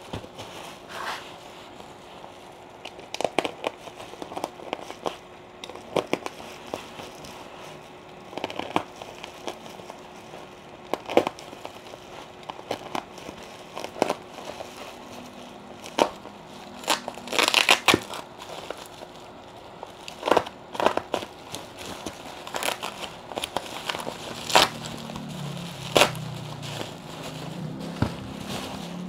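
Plastic bubble wrap handled and crinkled: irregular sharp crackles and pops, with a dense run of them a little past halfway.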